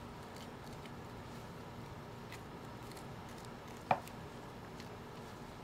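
Faint small clicks and scrapes of a scalpel cutting the hide free around a deer's mouth, over steady low room noise, with one sharp click about four seconds in.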